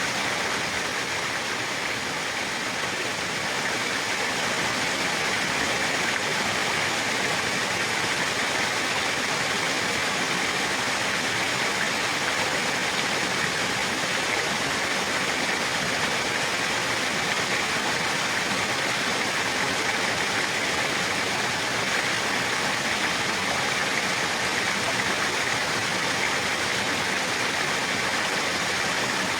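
Running water, a steady, unbroken rush.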